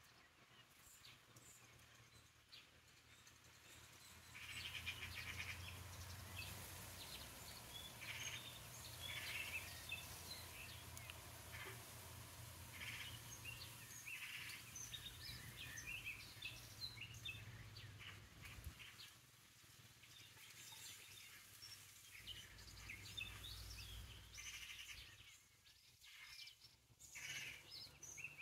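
Small songbirds chirping and calling faintly: many short, high notes come in quick scattered clusters, over a faint low hum.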